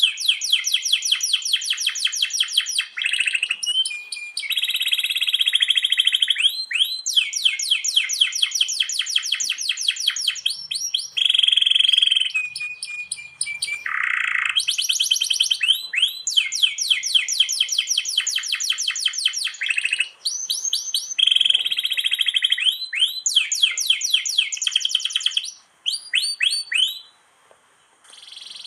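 Domestic canary singing a long run of rolls: rapid trills of fast-repeated notes, broken by a few held whistling notes and a short pause near the end.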